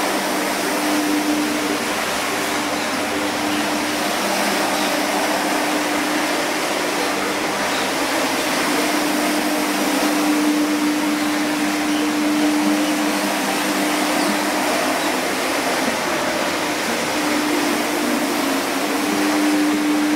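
Single-disc rotary scrubber running steadily, its brush scrubbing shampoo foam into a rug. A motor hum fades in and out over the steady whir.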